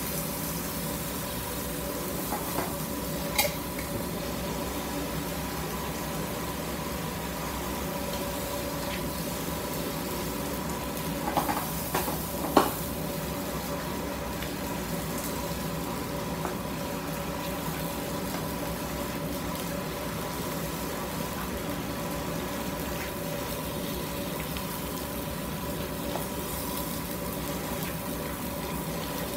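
Pork chicharrones with onions and salsa sizzling in a frying pan while being stirred with a spatula, which knocks against the pan about three seconds in and a couple of times around twelve seconds in.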